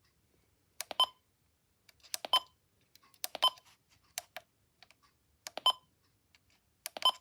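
Buttons being pressed on a weather alert radio while scrolling through its alert settings menu: about six presses, roughly one a second, each a click with a short electronic key beep.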